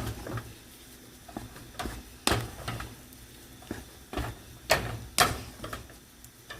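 Spoon stirring mashed potatoes in a pot, knocking against the side of the pot a handful of times at irregular intervals.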